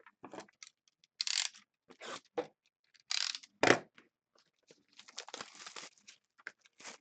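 Crinkling and tearing of plastic wrapping and scraping of cardboard as a sealed box of trading cards is opened, in a string of short, sharp bursts with a denser crackling stretch about five seconds in.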